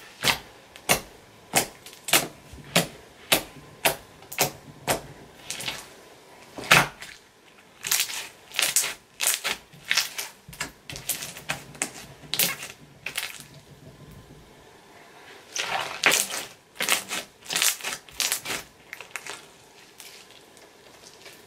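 Gold metallic slime being squished and poked by hand, making a run of sharp clicks and pops, about two a second at first, then in bunches with a short pause about two-thirds of the way through.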